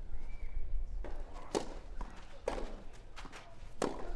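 A handful of sharp knocks, about one a second and unevenly spaced, over a steady low hum.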